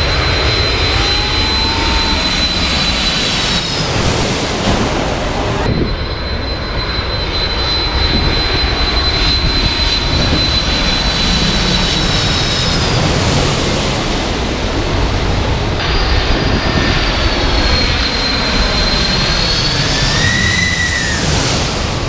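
Boeing 747's four jet engines on low final approach: loud, steady engine noise with a high whine that holds its pitch and then bends near the end of each shot. The sound changes abruptly twice where the footage is cut.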